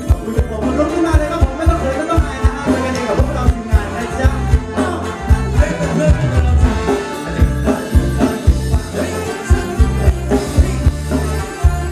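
Live band playing Thai ramwong dance music: a steady drum beat with bass and electric guitars, and a singer's voice over it.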